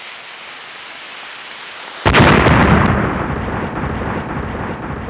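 A steady hiss, then about two seconds in a sudden loud rumbling boom that slowly dies away.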